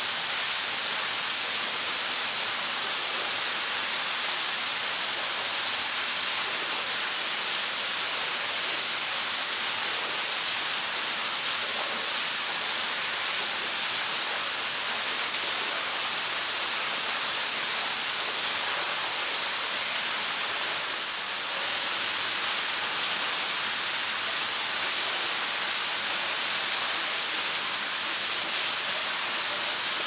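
Steady rush of flowing cave water heard as an even hiss, with one brief dip about two-thirds of the way through.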